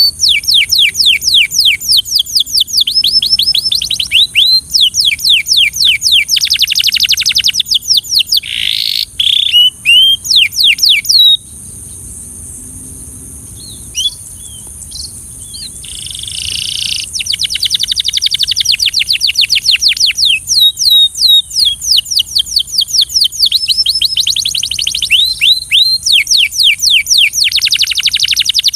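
Belgian canary singing: rapid trills of repeated falling notes, one run after another, breaking off for a few seconds in the middle before the song starts again. A steady high hiss lies underneath.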